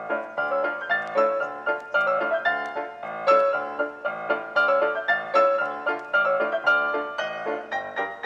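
Background instrumental music of quick, evenly paced piano notes.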